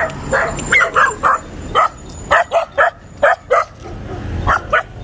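Street puppies barking and yipping in a quick string of short, sharp barks, about a dozen over a few seconds.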